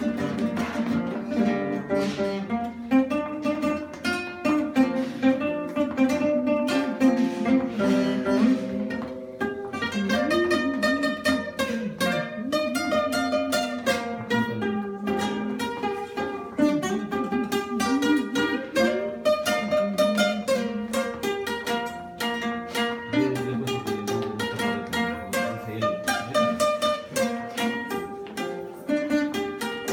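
Acoustic guitar played solo: an instrumental passage of quickly plucked melody notes and chords, with no singing.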